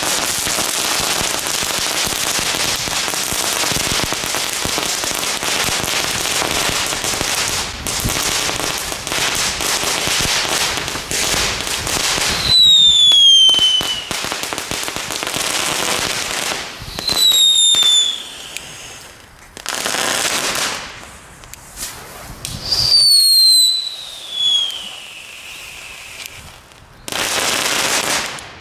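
Category 1 consumer ground fireworks going off: a long hissing, crackling spray of sparks, then a run of shorter bursts. Three of the bursts carry a whistle that falls in pitch.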